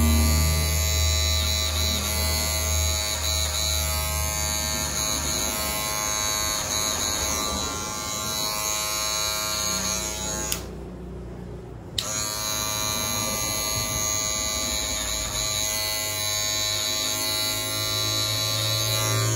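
Electric hair clippers buzzing steadily at an even pitch. A little past halfway the buzz drops out for about a second and a half, then comes back with a click.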